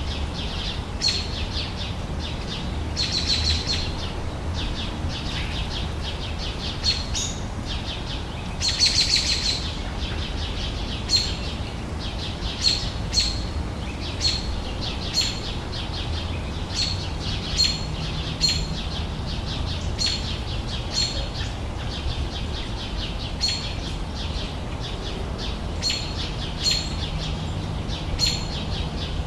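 Summer outdoor ambience of birds chirping: short high chirps repeated roughly once a second, broken by a few quick trilled bursts, over a steady low background rumble.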